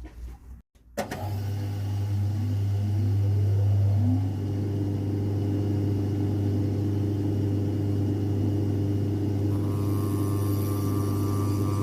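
Electric motor of a shoe-repair machine switching on, rising in pitch as it spins up over about three seconds, then running with a steady hum.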